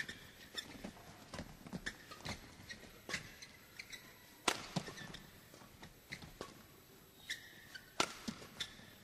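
Badminton rally: sharp, irregular racket hits on the shuttlecock mixed with players' quick footfalls and short shoe squeaks on the court. The loudest strikes come about halfway through and just before the end.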